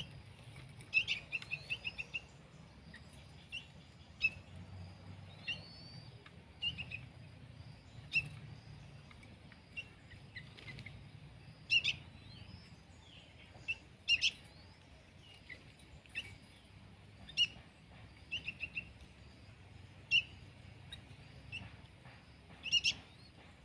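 Young sooty-headed bulbuls chirping: short, high chirps, some sweeping up or down, given irregularly and now and then in quick runs of several.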